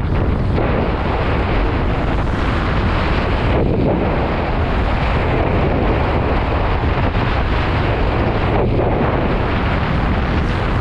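Strong wind buffeting a helmet-mounted GoPro's microphone in a steady low rumble, over the hiss of a kiteboard planing across choppy water.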